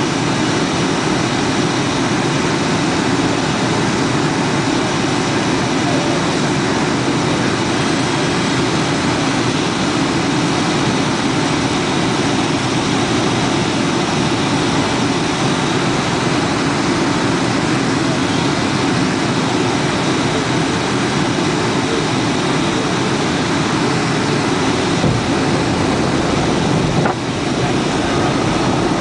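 Steady cabin noise inside a Boeing 757-200 in flight: the drone of its Rolls-Royce RB211-535E4B engines mixed with the rush of air along the fuselage.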